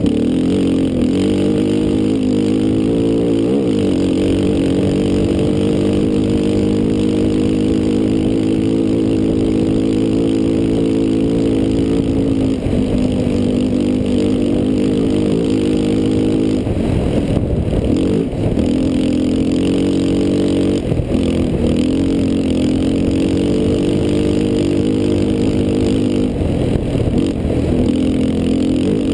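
ATV engine running hard at fairly steady high revs as the quad is ridden fast over a dirt trail, with a few brief dips and changes in revs about twelve, seventeen and twenty-one seconds in. Wind rush is heard underneath.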